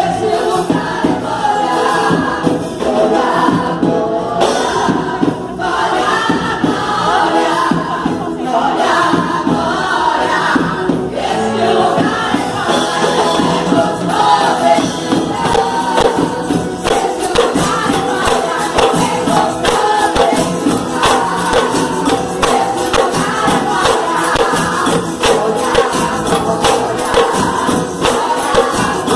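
Live gospel music: a group of voices singing to a church percussion group. The percussion's strokes become quicker and more even about halfway through.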